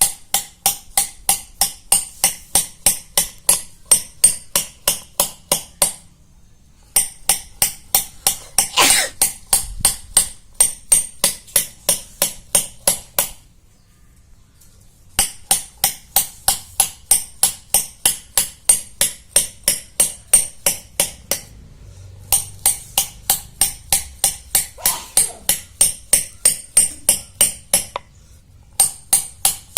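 A hammer tapping a metal chisel into the stone slab of a shil-pata grinder, pitting its surface so it grips again. The taps come rapidly and evenly, about four a second, each with a bright metallic ring, in runs broken by short pauses.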